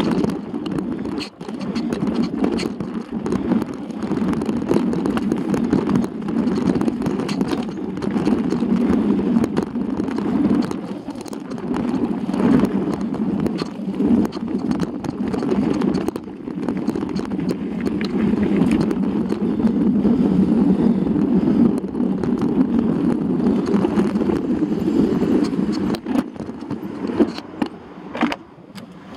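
Mountain bike riding fast down a rough dirt singletrack, heard from a handlebar-mounted camera: a steady rumble of tyres and wind, with constant rattles and knocks as the bike jolts over the ground. It turns quieter near the end.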